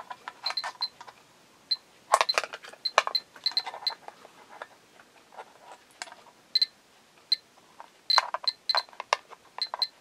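Terra-P dosimeter's audio clicking: short, high-pitched chirps, one for each detected particle, coming at irregular intervals in clusters with quieter gaps. The count is raised by the strong strontium-90 check source still inside the Type 75 Geiger counter's casing.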